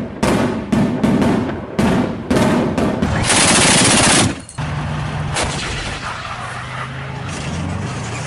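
A rapid series of sharp blasts from a multiple rocket launcher salvo, then, about three seconds in, a continuous burst of roughly a second from a tracked self-propelled anti-aircraft gun. A heavy vehicle engine runs steadily for the rest.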